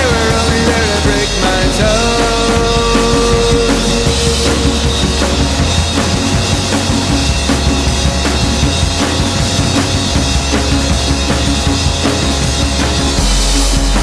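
Rock song playing with a full drum kit and a heavy low end, with held notes in the first few seconds and no words sung.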